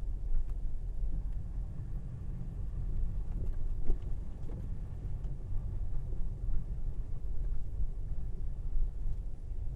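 Steady low rumble of a Tesla Model Y electric car driving on a snowy road: tyre and road noise with no engine sound. A small knock is heard about four seconds in.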